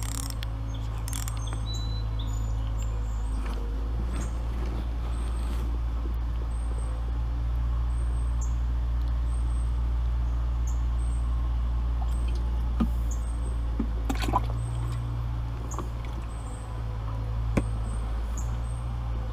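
Steady low outdoor rumble, with a small bird giving short high chirps about once a second; a few sharp clicks come near the end.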